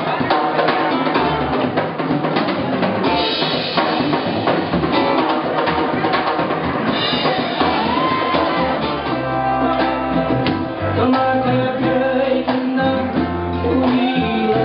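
A live band playing: drum kit and electric bass with guitar, and a voice singing from about halfway through.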